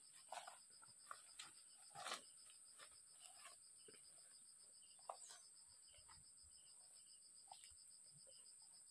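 Insects chirping in a grassy pasture: a steady high buzz with a fast, even pulse over it, faint overall. Soft rustling steps through grass in the first couple of seconds, fading as the walker moves off.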